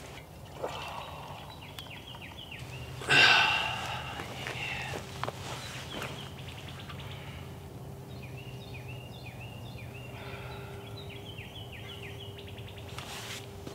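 Wild songbirds singing outdoors in repeated runs of short, slurred chirps, with one louder, harsher sound lasting about a second near the start.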